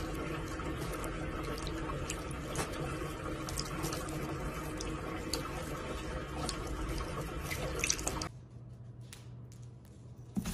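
Water running from a bathroom tap and splattering onto a cat's head, with many small drips and splashes; it stops abruptly about eight seconds in.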